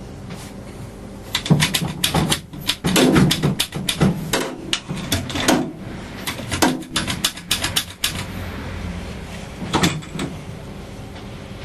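A quick, irregular run of sharp metal knocks and clatter over several seconds, then a single knock near the end: tools and parts being handled during hands-on work fitting the engine.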